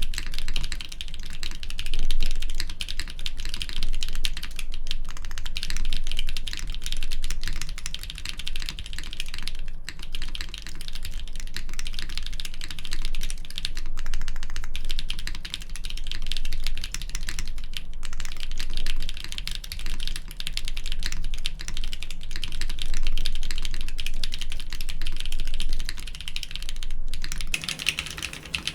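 Fast, continuous typing on a mechanical keyboard with doubleshot keycaps, a dense run of keystroke clacks with a few brief pauses.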